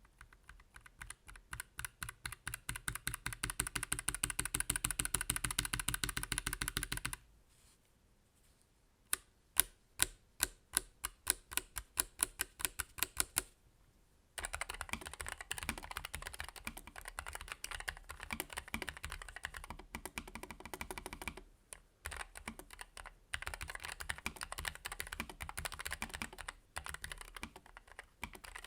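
Typing on a Keychron K1 Pro low-profile mechanical keyboard with lightly lubed Gateron 2.0 red low-profile switches. A fast run of key clicks is followed by a short pause, then single, louder key presses about two a second, then fast typing again.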